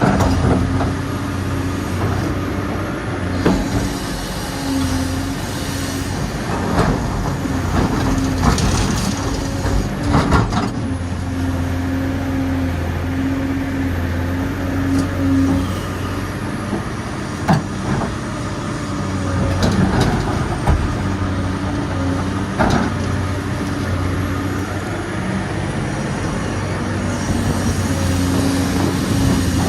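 Dubbed-in diesel engine of a full-size excavator running steadily, its note shifting up and down several times as the load changes, with scattered sharp knocks.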